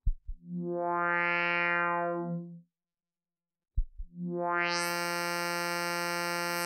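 Eurorack modular synthesizer: a low thump, then a low droning tone that swells in and fades away after about two seconds. After a short silence, a second thump brings the drone back; it brightens sharply about a second later and holds.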